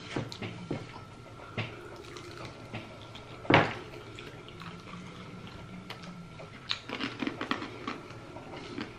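Mouth sounds of eating fried chicken wings: quiet chewing and wet lip smacking and finger licking, with one sharper smack a few seconds in and a run of small smacks near the end.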